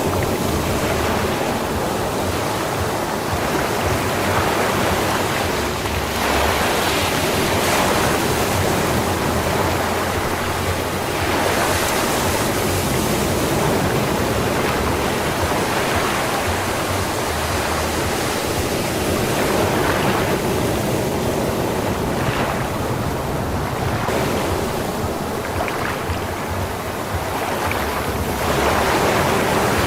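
Sea waves breaking and washing up on a sand beach: a continuous surf wash that swells and ebbs every few seconds.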